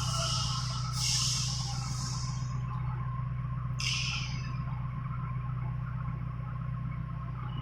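Steady low hum of a CNC router machine running, with three short hissing bursts that start sharply and fade: near the start, about a second in, and about four seconds in.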